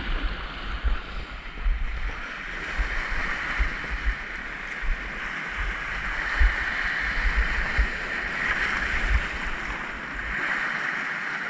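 Small sea waves washing against a rocky shore in a steady hiss, with irregular gusts of wind buffeting the microphone.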